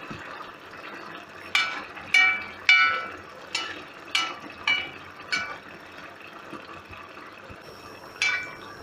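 A perforated metal skimmer clinks against a cast-iron kazan about eight times, short ringing metallic strikes coming in a quick run and then one more after a pause. Under them the zirvak simmers softly.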